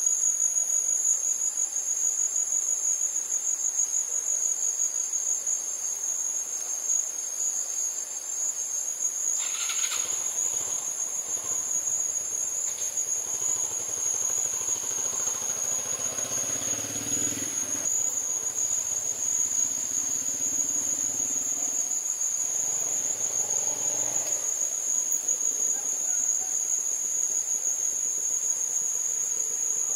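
Crickets trilling in one steady, unbroken high tone throughout. From about ten seconds in, a fainter low rumble joins for about fifteen seconds and then fades.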